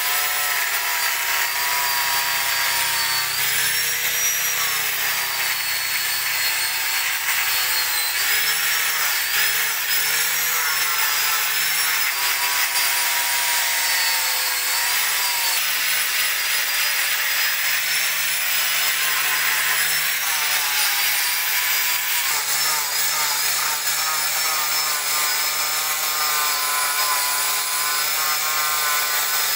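Electric angle grinder with an abrasive disc grinding into a teak stump. It runs without a break, and its high motor whine dips and recovers in pitch several times as the disc is pressed into the wood.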